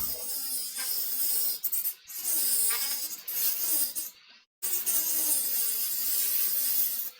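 Cordless rotary tool with a cutting wheel whining as it cuts into a metal heatsink, its pitch wavering with the load. It is broken by brief gaps about two seconds in and again past the middle.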